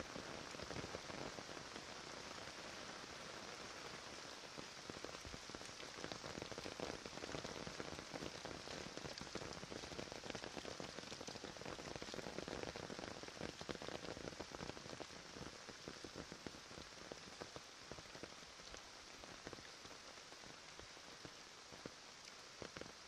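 Steady rain falling outdoors, an even hiss with many small drop hits throughout.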